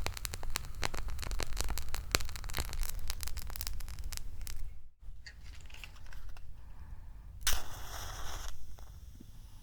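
Fire-lighting foley from matches, a lighter or a torch: a dense, irregular run of crackling clicks for about five seconds, then an abrupt break, followed a couple of seconds later by one short scraping hiss lasting about a second.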